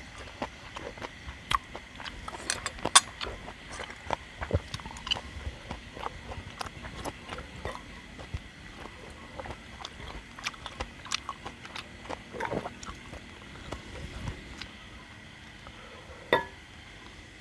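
A man chewing and eating close to the microphone, with irregular small clicks and taps of a ladle and chopsticks against a stainless-steel bowl; a sharp clink about three seconds in and another near the end are the loudest sounds.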